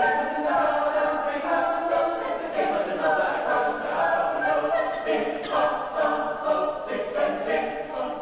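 A mixed high school choir of male and female voices singing together, holding notes that change every second or so.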